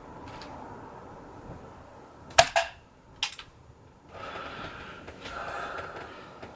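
A single shot from a CO2 air rifle, one sharp crack about two and a half seconds in with a quick smaller click right after it. A fainter click follows nearly a second later, then a stretch of soft rustling noise.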